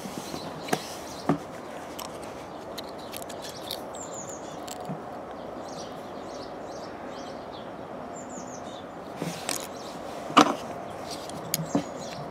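Small birds chirping over a steady mechanical hum, with a few sharp knocks: two in the first second and a half, and a cluster near the end, the loudest about ten seconds in.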